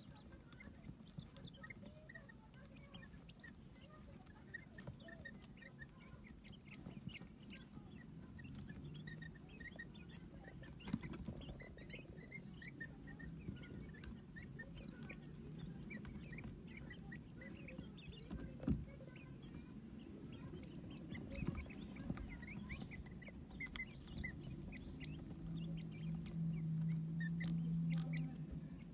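Quail chicks peeping steadily with many short, high chirps, with a few sharp taps in between. A low steady hum runs underneath and grows louder near the end.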